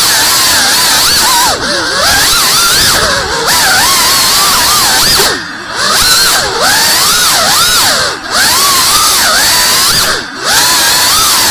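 3.5-inch cinewhoop FPV drone's brushless motors and ducted propellers whining, the pitch sweeping up and down with the throttle. The sound dips briefly several times where the throttle is cut during manoeuvres.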